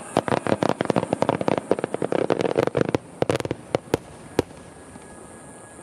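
Aerial fireworks bursting in rapid succession: a dense volley of bangs for about three seconds, then a few scattered single bangs, the last about four and a half seconds in.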